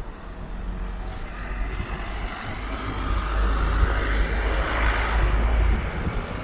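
A motor vehicle driving past close by: engine rumble and tyre noise build up, peak about two-thirds of the way through, then fade.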